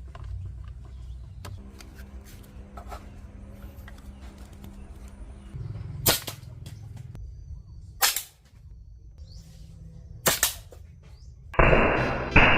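Homemade plastic blowgun, driven by compressed air at about 45 psi, fired three times: sharp pops about two seconds apart, with light handling clicks between them. Music starts near the end.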